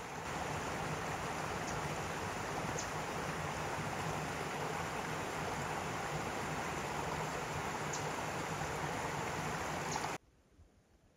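Small forest creek flowing, a steady rush of water that cuts off abruptly about ten seconds in.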